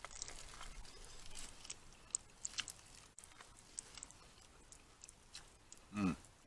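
Close-up chewing of corn on the cob, a run of small crisp, wet clicks as the kernels are bitten and chewed, thinning out after the first few seconds. A short hummed "mm" comes near the end.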